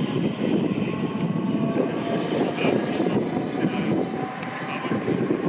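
Colas Railfreight Class 70 diesel locomotive's GE PowerHaul V16 engine running with a steady drone as the locomotive runs light at low speed.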